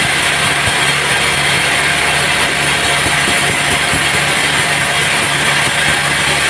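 Sawmill machinery running steadily: a constant motor hum under loud, even noise, with no distinct cuts or knocks.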